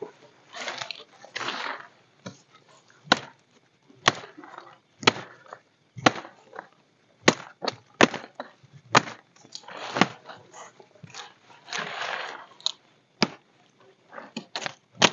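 Machete blade chopping into tough woody shrub stems, sharp strikes about once a second, with rustling of leaves and branches in between.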